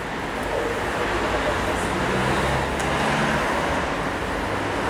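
City street traffic: a steady rush of passing road vehicles, with a low engine hum swelling about two seconds in and fading about a second and a half later.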